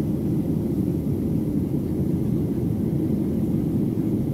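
Steady, low cabin noise of a Boeing 737-700 in flight, heard from a window seat over the wing: the rush of air past the fuselage and the drone of its CFM56-7B engines, unchanging throughout.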